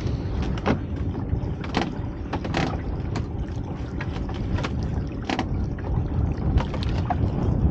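Water splashing and sloshing against the side of a small boat as a lobster pot is hauled up by hand and breaks the surface, with several short sharp splashes. A steady low rumble of wind on the microphone runs underneath.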